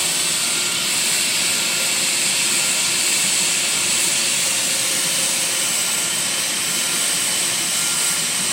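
Hot-gas plastic welder hissing steadily as it blows compressed zero air through its nozzle during a weld. A faint thin tone comes and goes under the hiss.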